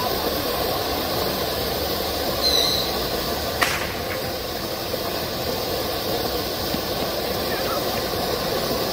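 Swiss volcano ground fountain firework burning, spraying sparks with a steady hiss, with one sharp crack about three and a half seconds in.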